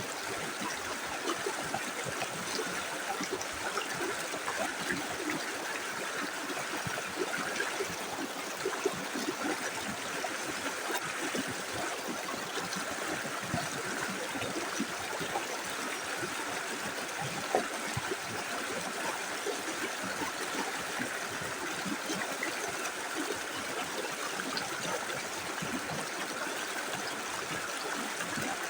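Small river flowing steadily over stones, a constant rush of water with small gurgles and splashes.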